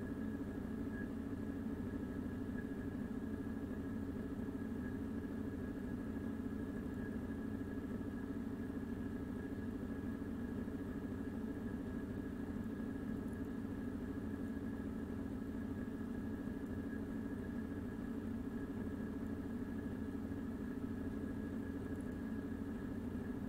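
Steady mechanical hum with a thin, faint high whine, unchanging throughout, like a machine running near the microphone; no speech.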